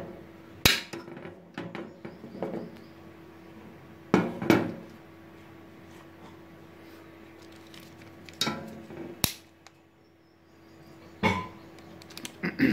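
Sharp clicks and metallic knocks as a plastic miniature circuit breaker is fitted onto a steel DIN rail and a metal cover plate is handled against the metal distribution box. About seven separate knocks come a second or a few seconds apart, with a faint steady hum underneath.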